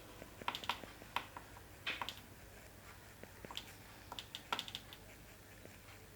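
Short, irregular clicks and taps, some in quick runs of three or four, from an oil pastel being worked against paper to fill in colour. A steady low hum runs underneath.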